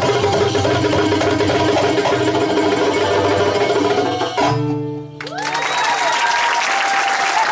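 Live Arabic ensemble of violin, oud and hand drums playing rhythmic music that ends on a held final chord about four and a half seconds in and breaks off. Audience applause and cheering follow at once.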